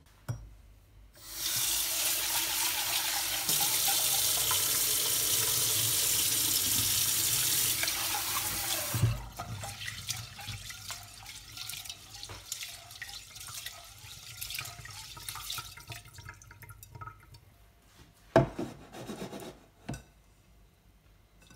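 Kitchen tap running into a rice cooker's inner pot for about eight seconds, then the water stops and hands swish and rub the rice grains in the water to wash them. A sharp knock comes about eighteen seconds in.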